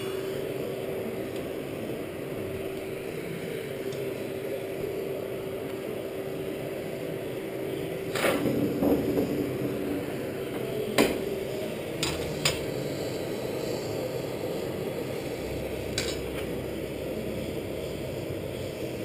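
Steady whir of a coal forge's air blower, with a few sharp metal clanks of tongs and steel stock being moved in and around the forge fire, a small cluster of them about eight seconds in.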